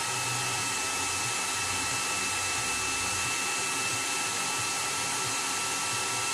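Handheld hair dryer blowing hot air: an even rush of air with a steady high motor whine, running at constant speed.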